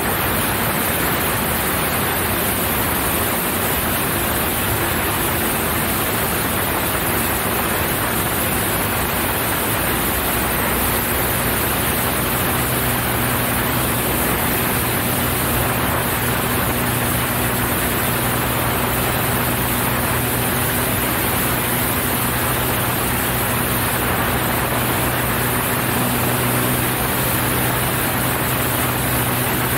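Cessna 172 single-engine light aircraft in flight: a steady rush of wind and engine noise, with a low, even engine hum that comes in about a third of the way through and holds.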